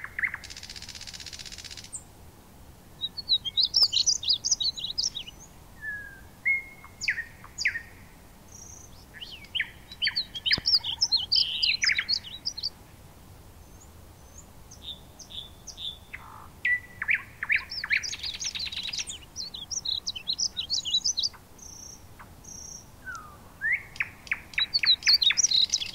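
Small birds chirping and twittering in repeated quick bursts, with a short hiss near the start and a few faint knife taps on a cutting board.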